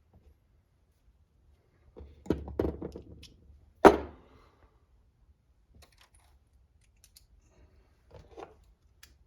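Small metal parts and tools clinking and clattering on a workbench while an RC transmission case is put back together. There is one sharp knock about four seconds in and a brief rattle near the end.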